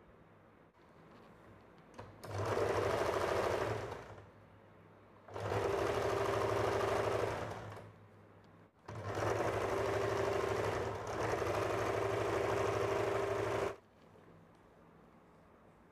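Electric domestic sewing machine stitching fabric in three runs, the first short and the last about five seconds long, stopping briefly between runs.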